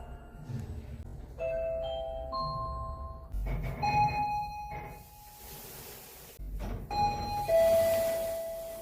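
Elevator arrival chimes: electronic bell-like tones ringing and fading, over a low background rumble. A rising run of three notes comes about a second and a half in, another chime near the middle, and a last one near the end.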